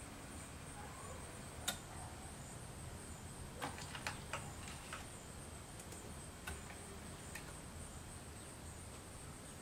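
Faint scattered clicks and creaks from a homemade four-degree-of-freedom robot arm's joint mechanisms as it is driven under manual control, with a cluster of clicks about four seconds in. Under them runs a steady, faint high-pitched whine.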